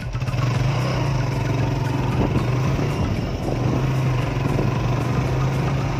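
Motorcycle engine running steadily under way, heard from on the bike.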